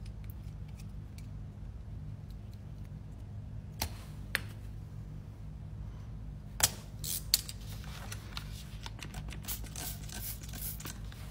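A rubber tyre string plug is trimmed with a cutter, giving two sharp snips about two-thirds of the way through, after a couple of softer clicks from the tools. Near the end comes a quick run of hissing spray-bottle squirts onto the plugged spot, a leak check. A steady low hum runs underneath.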